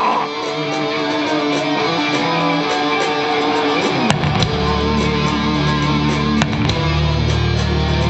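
Live melodic death metal band opening a song: electric guitar plays a melodic intro of held notes, and about four seconds in the heavy low end of the full band comes in, with sharp hits on top.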